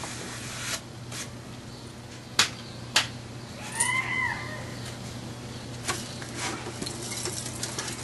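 Sharp knocks and clicks from the wooden frame of black-painted cans being handled and shifted, with a short high chirp just before the middle and a steady low hum underneath.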